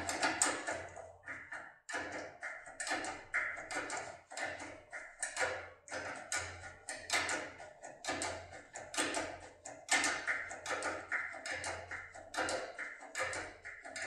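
Rapid, irregular small metallic clicks and taps from a Topolino decoder pick working the pins of an ABUS D6 cylinder lock, over background music.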